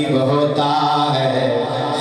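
A man singing an Islamic devotional naat into a microphone, a solo male voice holding long notes that slide from pitch to pitch.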